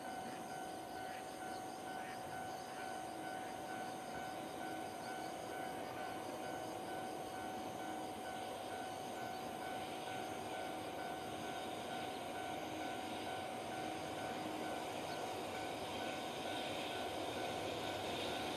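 Level crossing warning bell ringing with an even, repeating pulse as a freight train approaches. The train is an EH500 electric locomotive hauling tank cars, and its rail noise grows steadily louder from about halfway through.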